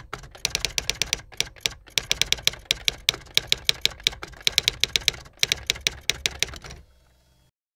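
Typewriter keys clacking in quick runs of strokes with short pauses between them, a typewriter sound effect for the words being typed onto the screen. The clacking stops near the end.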